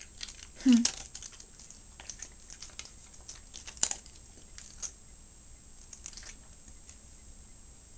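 A small dog eating dry kibble piece by piece: irregular crunches and clicks of kibble being picked from a metal bowl and chewed. About a second in comes a short, louder falling vocal sound.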